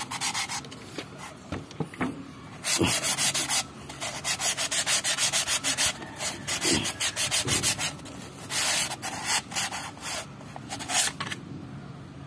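Sandpaper rubbed back and forth inside a drum-brake wheel cylinder's metal bore, in quick runs of scratchy strokes with short pauses between. It is the bore being sanded free of rust and polished smooth for new rubber cups.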